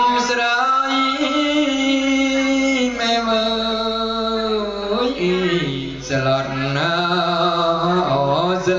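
A man's voice chanting in long, drawn-out notes, holding each pitch and sliding between them, dropping to a lower pitch about halfway through.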